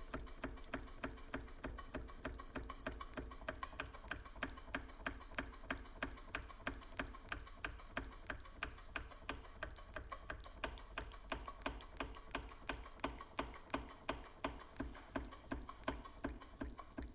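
Mamod TE1a model steam traction engine's oscillating cylinder chuffing with an even clicking beat, roughly four to five a second, as it runs down on the excess steam left after the burner is taken out.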